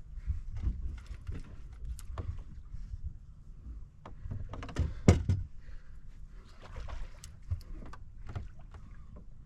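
Scattered knocks and bumps on a fishing boat over a low rumble, with one sharp, loud knock about five seconds in.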